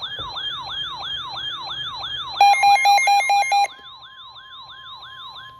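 Emergency-alert siren with a tone sweeping down over and over, about three times a second. About two seconds in, a louder pulsing electronic alarm beeps rapidly for about a second. A steady tone then holds under the sweeps: the attention tones that open an emergency alert.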